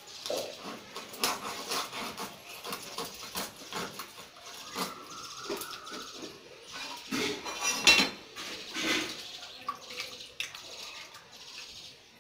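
A knife scrapes and taps as fish is scaled and cut on a wet floor. Then hands splash and rinse fish pieces in a metal pot of water, with one loud sharp knock about eight seconds in.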